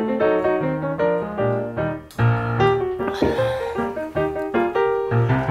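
Light background music with a piano melody over a bass line.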